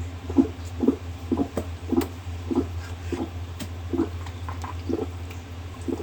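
A series of soft thumps, roughly two a second and a little uneven, with a few sharper clicks among them, over a steady low hum.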